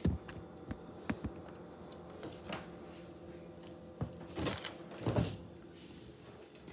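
Scattered sharp knocks and clatters of things being handled in a kitchen, about eight over several seconds, the loudest at the very start and around four to five seconds in.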